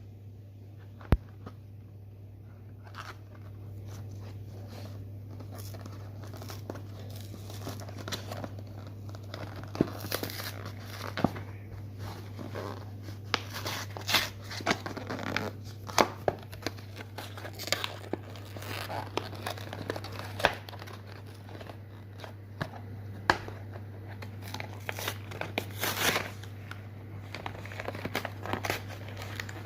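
Packaging of a boxed panettone being handled and unwrapped: irregular crinkling, crackling and tearing, busier after the first several seconds. A steady low hum runs underneath.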